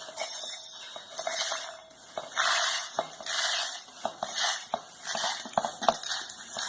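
A metal spoon scraping and clinking against a vessel while dry-roasted dal and rice are scooped into a mixer jar, in a run of short rustling scoops about a second apart with light clicks between.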